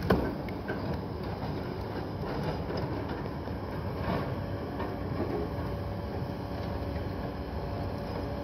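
Diesel engines and hydraulics of two hoe chucker log loaders running steadily as they swing logs, with a sharp knock right at the start and a thin steady whine setting in about halfway through.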